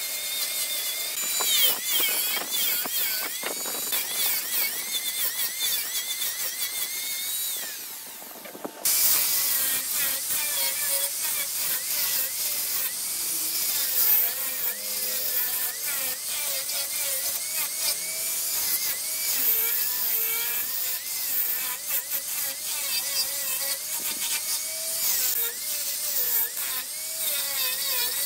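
Handheld electric angle grinder running with a carving and sanding attachment pressed into hardwood, its high whine wavering up and down as the disc bites and eases off, over a rasping grinding hiss. The sound drops away briefly about eight seconds in and comes back suddenly.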